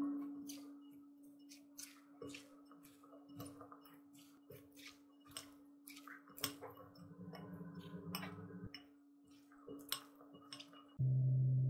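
Silicone spatulas tossing shredded salad with chickpeas in a glass bowl: irregular ticks and clicks of the utensils against the glass and the vegetables, over a faint steady tone. Near the end a loud low tone cuts in abruptly.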